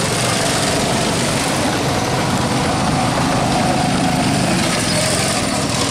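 An engine running steadily under a loud, even rushing noise.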